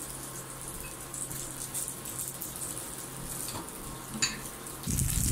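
Shabu-shabu broth boiling in a pot on an induction cooker: a steady hiss over a low hum, with a light click about four seconds in. A louder low rumble starts near the end.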